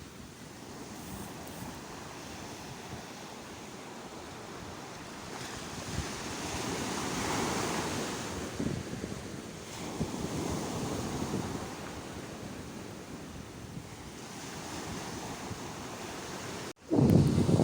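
Sea waves washing ashore: a steady rush of surf that swells twice in the middle. Near the end the sound cuts out for an instant and comes back much louder, with wind buffeting the microphone.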